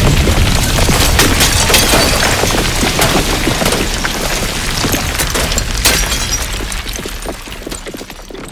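Stones and debris falling and clattering after a heavy crash: a dense patter of many small impacts that gradually thins out and fades away toward the end.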